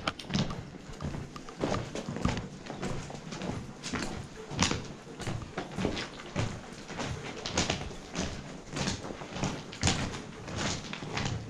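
Footsteps walking steadily over the gritty, rubble-strewn floor inside a disused brick railway tunnel, about two steps a second.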